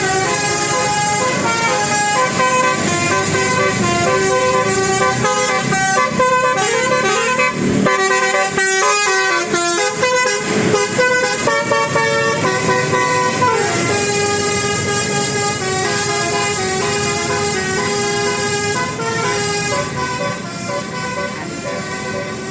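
Bus telolet horn, a multi-tone musical air horn, playing a tune. Chords of several notes change in steps, note after note, with a falling glide about two-thirds of the way through.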